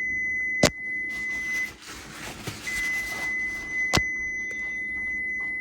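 Two long, steady, high electronic beeps, each lasting about three seconds with a short gap between them, and a sharp click during each.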